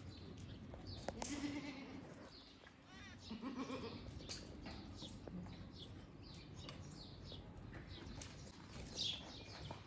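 Sirohi goats bleating, with two short calls, one about a second in and another around three and a half seconds in, over a background of short high chirps.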